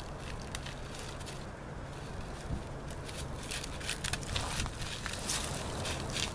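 Dry leaves and twigs crackling and rustling as a small dog noses through dead brush and leaf litter, with the crackles coming thicker in the second half, over a steady low rumble.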